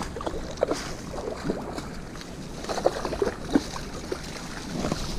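Water splashing and dripping in short, irregular small splashes.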